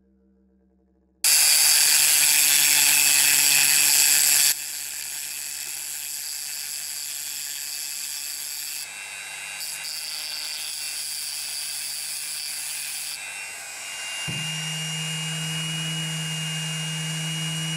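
Dremel rotary tool with a sanding drum starting about a second in and grinding against a diecast metal base plate, a loud harsh rasp for a few seconds, then running on more quietly as the drum works the metal. Near the end the motor settles into a steadier, louder hum.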